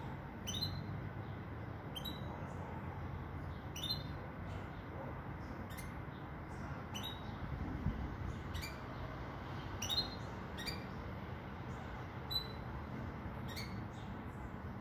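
Venezuelan pintagol, a hybrid of a siskin and a Belgian canary hen, giving short, sharp call notes about once a second or a little slower, about ten in all. A steady low background hum runs underneath.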